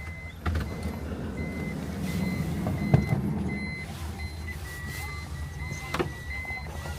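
Car engine running with a short high electronic beep repeating about twice a second. A few sharp knocks, around three seconds and six seconds in, stand out above it.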